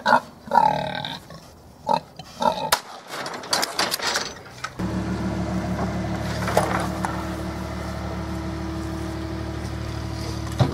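Hog noises and sharp knocks from pigs in a wooden livestock trailer. About five seconds in, a steady low hum starts suddenly and runs on.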